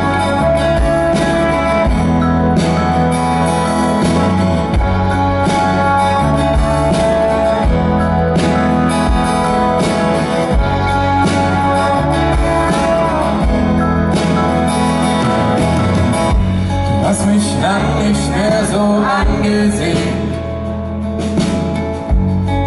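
Live acoustic band playing a pop ballad intro: strummed acoustic guitar over bass and steady drum hits. A male voice begins singing about three-quarters of the way in.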